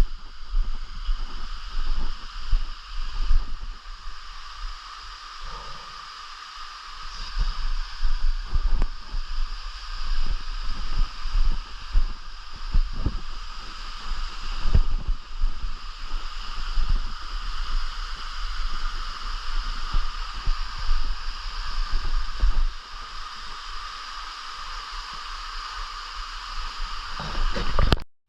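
Subtropical forest ambience: a steady high insect chorus in several layered pitches over uneven low rumbling and short low thumps from wind and handling on the microphone. The sound cuts off abruptly near the end.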